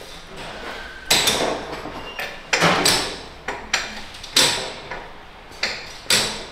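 A series of sharp knocks and clanks from hands-on work on a car, about seven at irregular intervals, each ringing out briefly.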